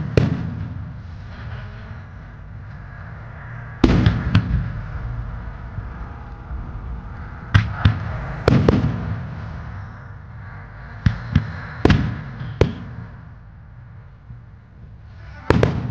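Aerial firework shells of a wide starmine barrage bursting with sharp booms in clusters. There is one at the start, two about four seconds in, a quick run of four around eight seconds, four more from eleven to thirteen seconds, and one near the end, each trailed by a low rolling echo.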